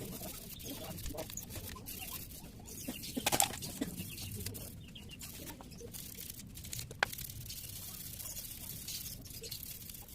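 Stiff wire brush scrubbing a petrol-wetted motorcycle cylinder block, making dense, irregular scratching and clicking, with a sharper click about seven seconds in.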